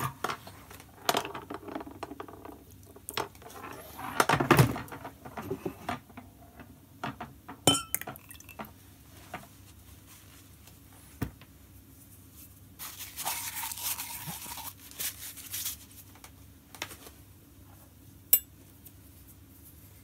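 Metal cupping spoons clinking and tapping against porcelain coffee cups and glass, a dozen or so scattered sharp clinks, some ringing briefly, with a longer hissing rustle about two-thirds of the way through.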